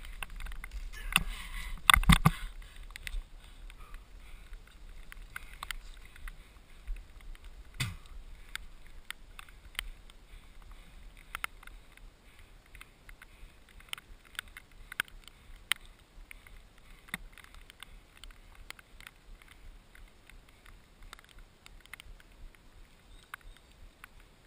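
Mountain bike rattling and knocking as it rides over a rough forest dirt trail, picked up by a camera riding on the bike. A louder stretch of dense knocks in the first few seconds, then quieter riding with irregular sharp clicks over a faint hiss.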